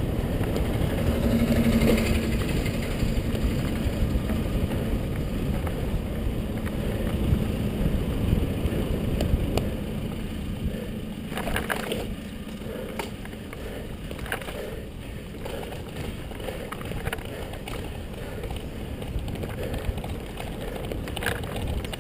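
Wind buffeting and road rumble on an action camera's microphone during a slow ride, easing partway through as the pace drops, with a few short knocks and rattles.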